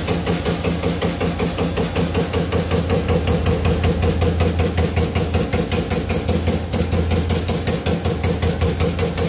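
CNC turret punch press punching a run of holes in sheet metal: a rapid, even rhythm of punch strokes over a steady machine hum.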